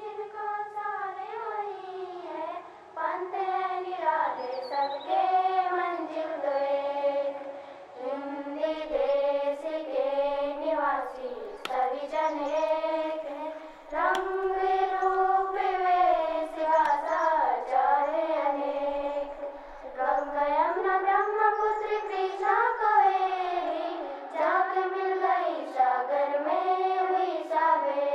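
A high solo voice singing a slow melody in long phrases, with short breaks about every four to six seconds.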